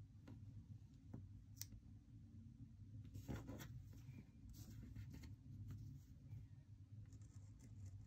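Faint scratching of a precision craft knife's blade on paper as it trims washi tape along a page edge, a few short strokes and light ticks.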